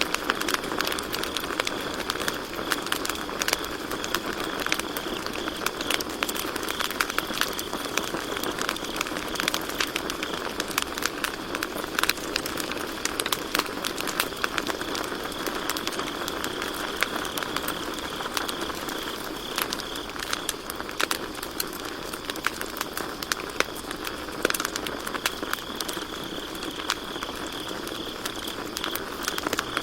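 Campfire crackling and popping steadily, with sharp snaps among a soft hiss of burning wood. Crickets trill in a steady high tone behind it, fading for a while in the middle and coming back near the end.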